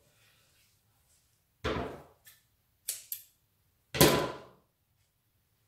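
Scissors knocking and clicking on a wooden tabletop as they are handled. There is a knock about one and a half seconds in, two small clicks near three seconds, and the loudest knock at about four seconds.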